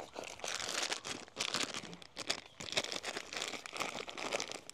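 Plastic snack wrapper crinkling with irregular crackles as it is handled and opened.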